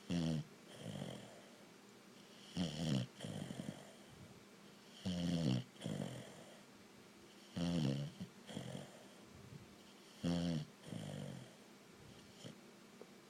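A sleeping pet snoring: five snores about two and a half seconds apart, each followed by a softer breath out.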